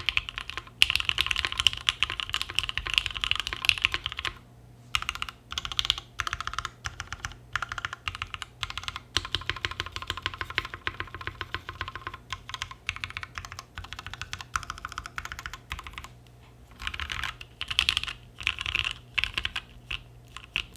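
Typing on a gasket-mounted Mekanisk Tind 60% mechanical keyboard with lubed Gateron Ink linear switches on a carbon fiber plate and GMK keycaps, a deep-sounding click-clack. Fast steady typing for about four seconds, then shorter runs of keystrokes broken by brief pauses.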